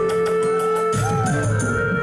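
Dance music with drums and a long held melody note over a moving bass line.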